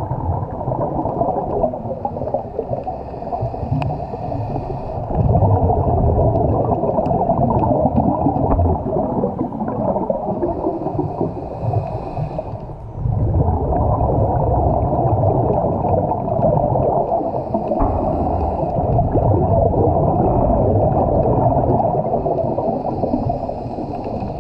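Muffled underwater noise through a camera housing: a scuba diver's breathing, with rumbling, gurgling swells of exhaled bubbles every several seconds and a faint hiss between them.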